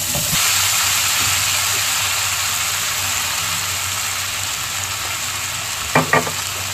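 Khoya sizzling as it drops into hot desi ghee in a non-stick pan. The sizzle jumps up just after the start as the khoya lands, then holds steady and slowly eases. Two short taps come near the end.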